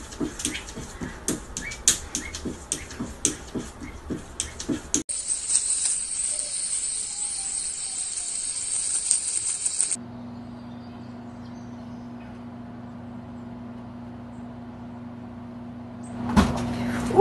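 A cat's paws tapping and knocking against a mirror, a quick irregular string of sharp knocks. It is followed by a few seconds of steady high hiss, then a steady low hum, with a sudden louder sound near the end.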